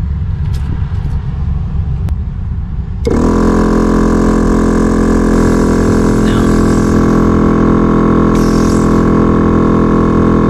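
A low rumble, then about three seconds in a VIAIR air compressor switches on and runs steadily, pumping up its tank.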